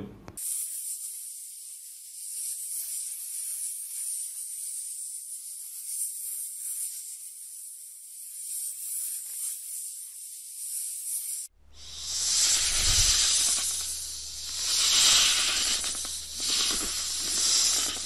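Steady high-pitched hissing, like a snake's hiss. About two-thirds of the way through it changes abruptly to a louder, fuller hiss over a low hum that swells and fades several times.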